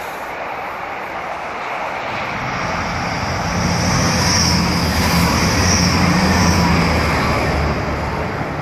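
Hull Trains Class 180 diesel multiple unit passing close by at speed. Its noise builds from about two seconds in and is loudest midway as the train goes by, with a low engine drone under a high hiss.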